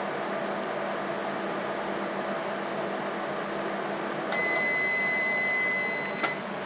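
Microwave oven running with a steady hum, then a single high electronic beep about four seconds in that lasts about two seconds and ends with a click.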